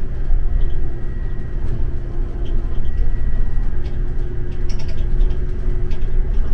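Interior noise of a Scania Caetano Levante 2 coach under way: a steady low rumble with a constant humming tone and a few small rattles.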